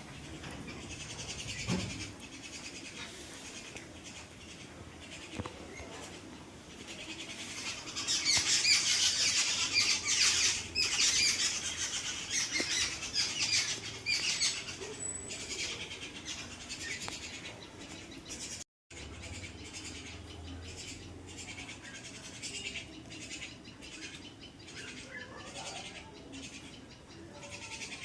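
Small birds chirping and twittering in quick, high calls, busiest and loudest from about eight to fifteen seconds in.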